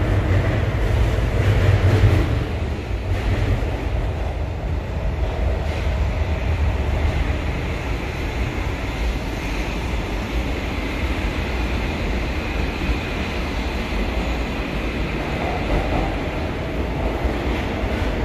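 Steady rumble and rail noise of a São Paulo Metro Line 2 train, heard from inside a car while it runs between stations. It is a little louder about two seconds in.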